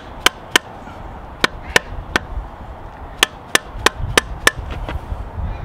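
Mallet tapping on a piece of plastic pipe used as a driver to seat a new pinion seal in a truck's rear axle differential housing. About a dozen sharp taps come in quick groups of two or three.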